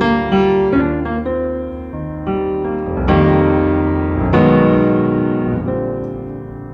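Piano music: notes and chords struck one after another, each left to ring and fade.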